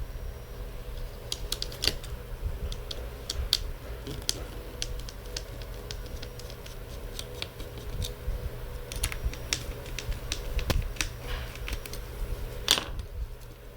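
Irregular small clicks and taps of hand work on a laptop's internals, with one louder click near the end.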